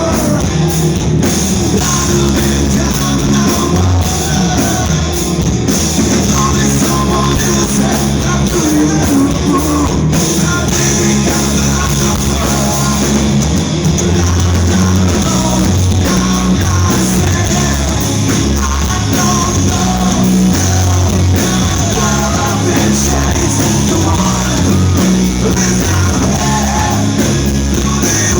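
Live rock band playing at full volume, with a vocalist singing over loud bass, drums and guitars.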